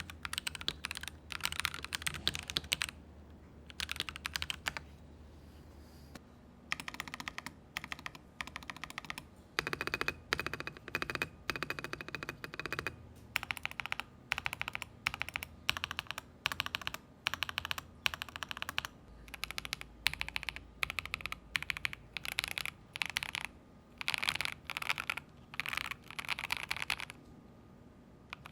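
Typing on a mechanical keyboard with lubed Akko Radiant Red linear switches: fast runs of keystrokes, broken by a pause of a few seconds near the start and a shorter pause near the end.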